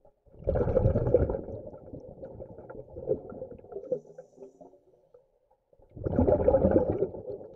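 Scuba diver exhaling through a regulator underwater: two bursts of bubbles about five and a half seconds apart, each rumbling for about a second and then trickling away.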